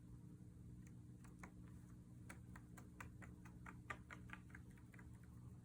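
Faint, irregular light clicking, a few small clicks a second, over a low steady hum.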